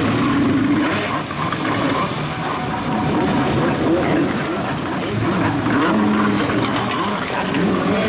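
Jet ski engines revving up and down as a rider spins his craft in tight circles, with a second jet ski running behind, over the hiss of churned water and spray.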